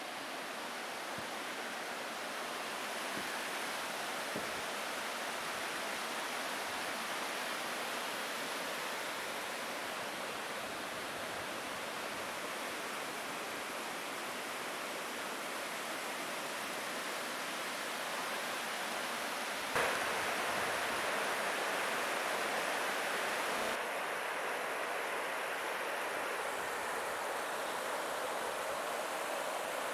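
Steady rush of water falling over a small waterfall or cascade. About two-thirds of the way through a short click is followed by a brighter rush, and a few seconds later the sound turns duller.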